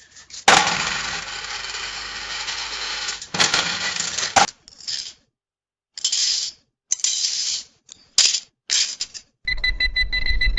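A string of separate money sound effects, coins clinking and cash-register sounds, starting with a long jangle of about three seconds and then several short clips. Near the end, rapid electronic beeping starts.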